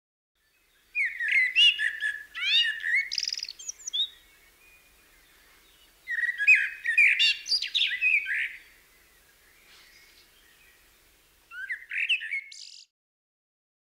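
A songbird singing three bursts of song, each a couple of seconds of quick chirps and trills, with pauses between.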